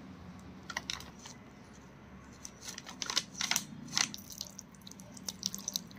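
Faint wet squelching and short clicks of a hand mixing raw chicken pieces in a sticky red marinade with cornflour in a glass bowl, the clicks gathered mostly in the middle.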